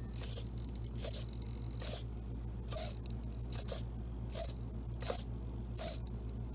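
Small 5 g hobby servo whirring in short bursts, about one every 0.8 seconds, eight in all, as it drives the LEGO Technic steering gear and rack to swing the front wheels from side to side.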